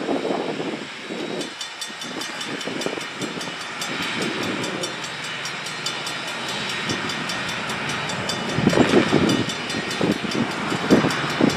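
Steam locomotive, Black River and Western No. 60, a 2-8-0, chuffing as it works toward the station, its exhaust growing louder near the end. From about a second in, a grade-crossing bell rings in rapid, even strokes.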